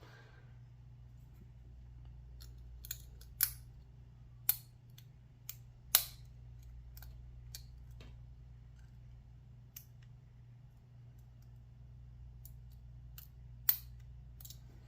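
Scattered, irregular sharp metal clicks and taps of lock-picking tools and a padlock being handled, the loudest about six seconds in, over a low steady hum.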